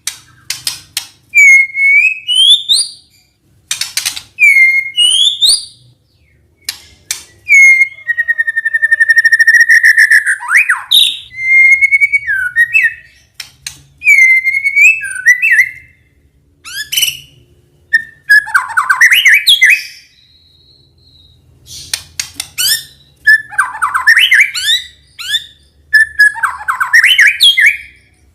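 White-rumped shama (murai batu) singing loud whistled phrases. It opens with repeated rising slurred notes, holds one long whistle about eight seconds in, then moves into quicker, varied warbled phrases.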